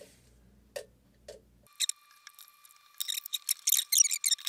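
Sharp plastic and metal clicks and rattles as the opened surge suppressor's case and parts are worked apart by hand. Two faint clicks come first, then a quick run of many clicks about three seconds in.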